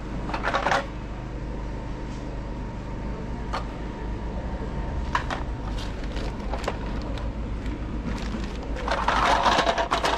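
Hands rummaging through a plastic carrier bag and cardboard box of toys: a rustle near the start, scattered clicks of plastic items in between, and a louder rustle near the end. A steady low hum runs underneath.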